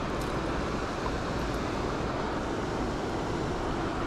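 Steady rush of river water running over a shallow, stony stretch and weir.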